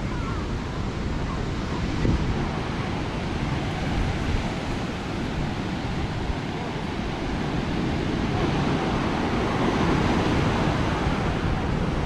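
Atlantic surf breaking on a black volcanic-sand beach: a continuous rushing wash that swells louder for a few seconds near the end. Wind sounds on the microphone.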